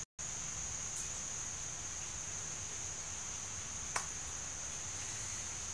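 Quiet background with a steady high-pitched whine over a low hiss, and one faint click about four seconds in. The sound drops out for an instant at the very start.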